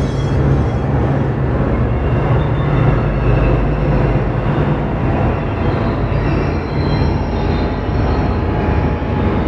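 Electronic ambient soundscape: a steady, dense rumbling noise over a low hum, with a few faint high sustained tones.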